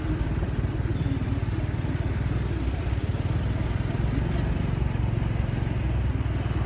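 Motor scooter's small engine running steadily as it rides slowly along a street, a low even hum with street noise around it.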